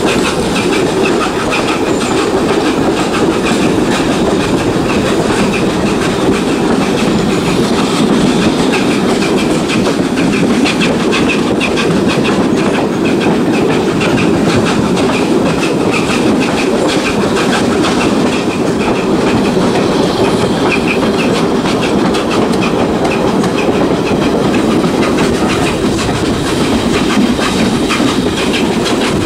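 LNER A4 Pacific 'Bittern', a three-cylinder steam locomotive, hauling its train, heard from an open carriage window: a steady loud run of exhaust and rolling coaches with clickety-clack from the wheels on the rail joints.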